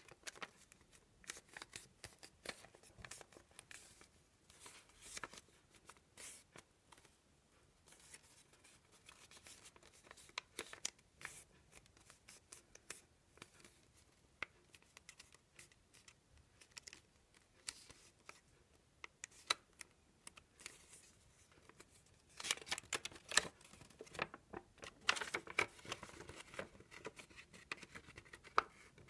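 A sheet of paper being folded and creased by hand: soft rustles and crackles of paper against paper and fingers pressing creases. They come sparsely at first and grow louder and busier over the last several seconds as the sheet is handled and opened out.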